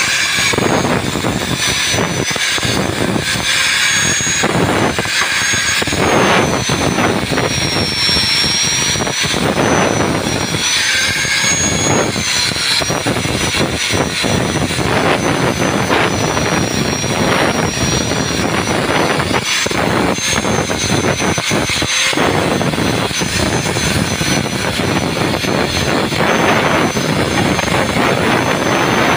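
Angle grinder with a flap disc running at speed and grinding a weld on a steel pipe: a steady high whine that wavers a little as the disc bites, over the rasp of abrasive on metal.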